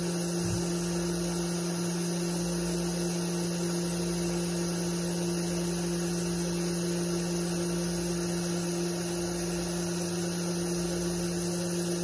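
Electric cream separator running steadily while separating milk, its motor giving a constant, even hum.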